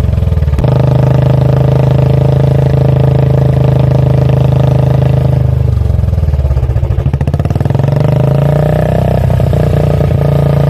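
Royal Enfield Bullet 350's single-cylinder engine and exhaust running while the bike is ridden at speed. The note eases and drops about six seconds in, then picks back up as throttle comes on again.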